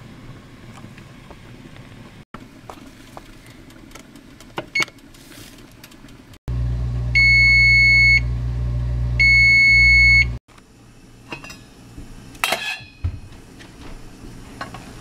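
Electric range's kitchen timer sounding two long electronic beeps, each about a second long, as it runs out at 0:00 to signal the end of the cooking time, over a steady low hum. Light clicks come before the beeps and a short clatter follows near the end.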